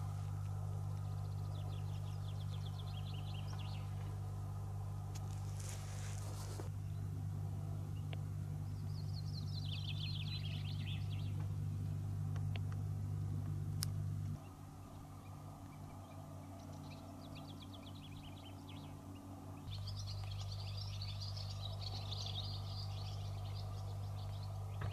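Small birds singing in short, rapid chirping trills, several times, over a steady low hum. The hum drops out for about five seconds past the middle, then returns.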